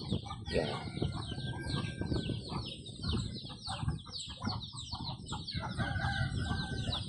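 Backyard chickens clucking and calling, with a longer pitched call near the end, over a high chirp repeating about three times a second.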